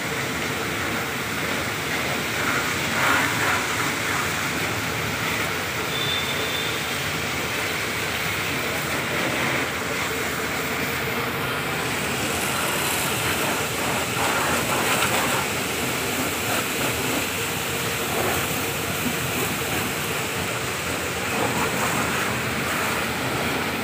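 Pressure washer's water jet spraying steadily onto a car's front bumper and grille, a continuous hiss with no breaks.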